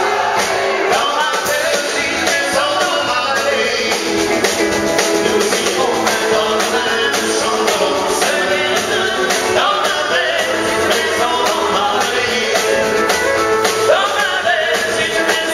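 Live band playing an upbeat country song, a woman singing lead over strummed acoustic guitar, drums and keyboard, loud and steady throughout.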